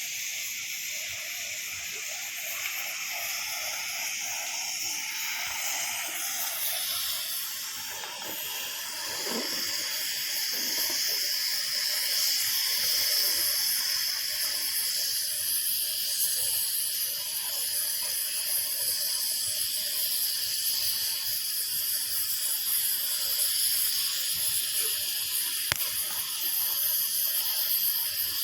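Cutting torch hissing steadily as it cuts through thick steel plate, the hiss shifting in tone about a third of the way in. A single sharp click near the end.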